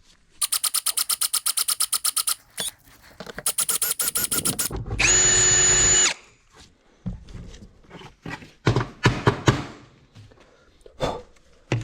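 Power drill with a size 7 bit drilling out a screw cover to reach a square-head screw. It runs in two spells of rapid, even pulsing, then gives a steady high whine for about a second, followed by irregular knocks and scrapes.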